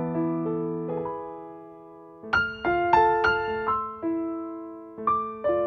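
Solo piano background music. A chord fades away over about two seconds, then a quick group of notes comes in, and more notes follow near the end.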